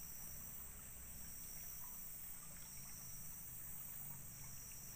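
Steady, high-pitched chorus of insects, continuous and without pauses.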